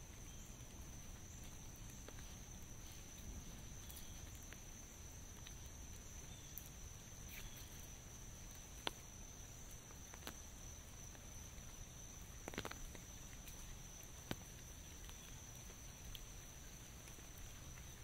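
Faint rain-walk ambience under an umbrella: a few scattered single drops tapping on the umbrella over a low steady background hiss, with a continuous high-pitched drone running throughout.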